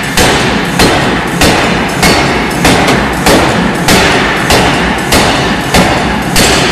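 Forging hammer striking a red-hot titanium ring held on a mandrel bar, with loud, evenly paced blows about one and a half a second. Steady machinery noise carries on between the blows.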